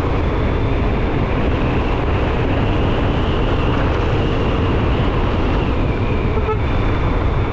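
Wind rushing over the microphone and road noise from a custom electric motorcycle riding at speed, with a thin, steady high whine from its electric drive instead of any engine.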